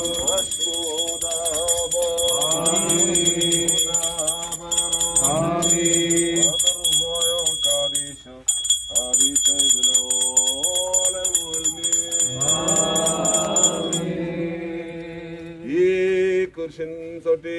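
Men chanting a liturgical hymn over small metal bells jingling steadily; the bells stop about fourteen seconds in, with a short break just after eight seconds.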